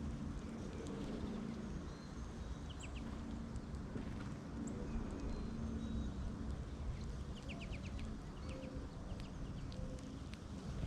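Birds calling: scattered short high chirps and two quick runs of a few rapid notes, over a steady low rumble.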